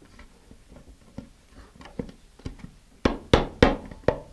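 Small hammer striking the handle of a screwdriver whose blade is set against a paper engine block inside a cardboard model-rocket tube, pounding the block out. Light faint taps at first, then about three seconds in a run of four sharp blows about a third of a second apart.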